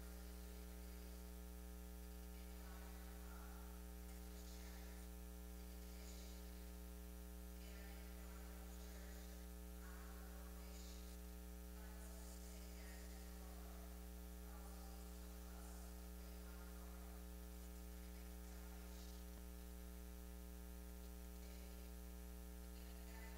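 Steady low electrical mains hum in the sound feed, with faint, indistinct sounds coming and going over it.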